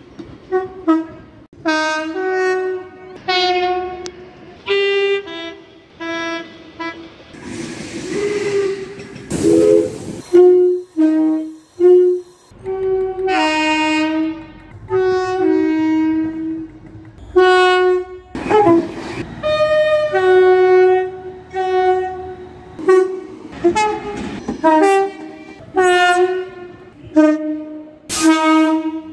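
Two-tone train horns sounded again and again in short blasts, each call stepping between a higher and a lower note, from one train after another. A rushing noise of a passing train comes up twice, about a quarter of the way in and again just past the middle.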